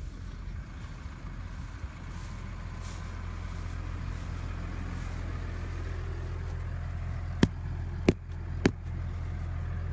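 Tractor engine running steadily with a low hum, slowly growing a little louder. Three sharp clicks, about half a second apart, stand out near the end.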